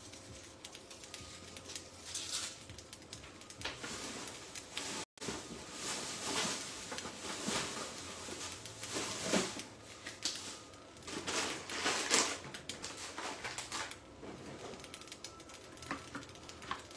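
Scattered light clatter, knocks and rustles of kitchen things being handled and put away, with short pauses between them.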